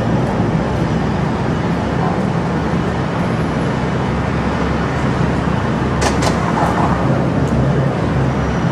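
Steady low mechanical rumble with a hum, and a brief sharp knock about six seconds in.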